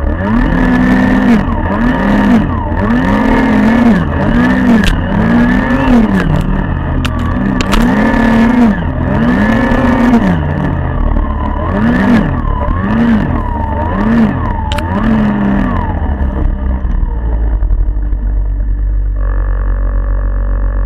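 Snowmobile engine revving up and down again and again, about a dozen rises and falls of pitch in quick succession, with a few sharp knocks, then settling to a steadier sound for the last few seconds.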